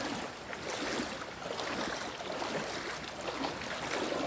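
Steady rush of flowing stream water by the waterfalls.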